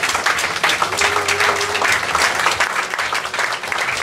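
Theatre audience applauding, a dense, steady spatter of many hands clapping at once.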